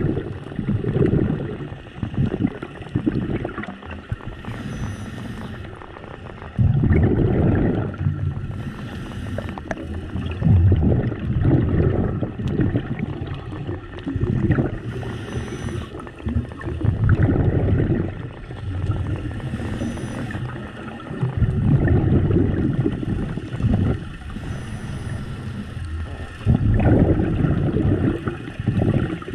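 Scuba diver breathing through a regulator, heard underwater: low gurgling bursts of exhaled bubbles, one to two seconds long and a few seconds apart, with a short hiss of inhalation between them.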